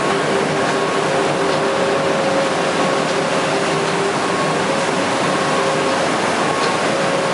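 UV coating line for MDF panels running: a steady machine whir and rush of air from its conveyor drive motors and extraction blower, with a few faint steady tones in it.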